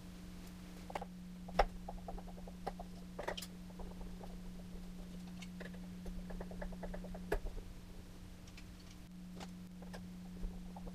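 Small screwdriver turning the mounting-ring screws of an electric guitar's humbucker pickup: two runs of fast little clicks and squeaks as the screws back out, with a few sharper taps, over a steady low hum.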